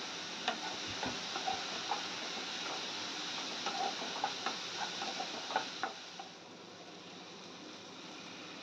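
A wooden spatula stirring onions and tomatoes frying in a nonstick kadai: a dozen or so light knocks and scrapes against the pan over a steady sizzle. The knocking stops about six seconds in and the sizzle carries on, a little quieter.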